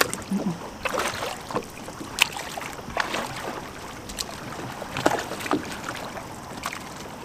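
Oars of a small inflatable dinghy being rowed, each stroke giving a short splash, irregularly about once a second.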